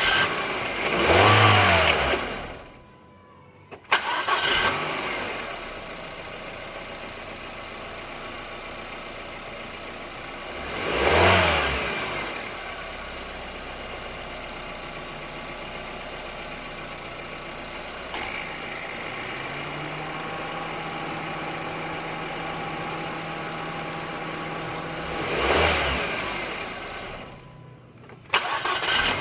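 Mazda Demio DE3FS four-cylinder petrol engine idling and revved briefly three times, with two short breaks. The uploader puts the engine's abnormal noise down to a faulty alternator overrunning clutch pulley.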